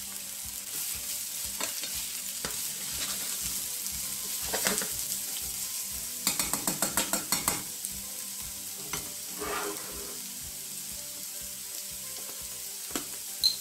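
Julienned carrots and sweet potato sizzling in oil in a frying pan as they are stirred with a spatula. About halfway through comes a quick run of spatula strokes against the pan.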